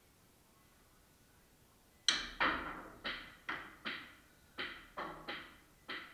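Pool shot: a sharp clack of the cue tip and the balls about two seconds in, the loudest sound, followed by a run of about eight further sharp, ringing ball knocks over the next four seconds as the balls strike and the pocketed ball rattles away.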